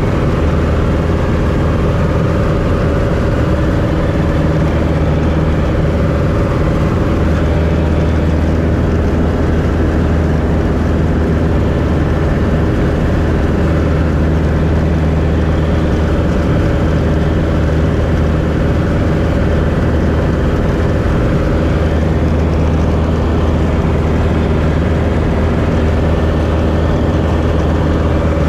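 Two-seat light aircraft's piston engine and propeller in flight, heard from inside the cockpit as a loud, steady drone that holds one pitch throughout.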